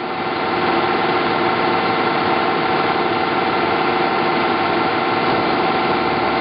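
Clausing Colchester 1755 geared-head engine lathe running, its gearbox and motor giving a steady whine of several fixed tones over a mechanical hum. The sound swells within the first second as the machine comes up to speed, then holds steady.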